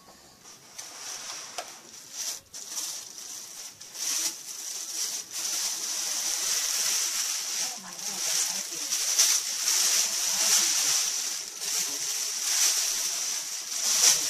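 Plastic bags and cellophane wrapping crinkling and rustling as items are pulled from a box and handled, getting louder and busier about four seconds in.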